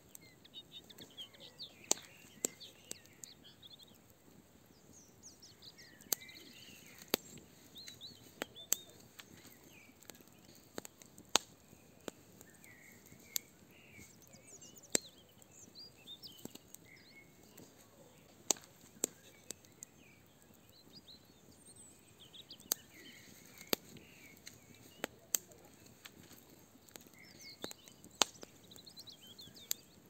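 Fire burning in a barbecue brazier, crackling with sharp, irregular pops every second or two. Songbirds chirp in short bursts behind it.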